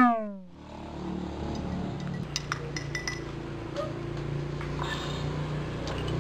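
A spoon clinking against a drinking glass in a few light, scattered ticks, over a steady low hum. It opens on the fading end of a falling sound effect.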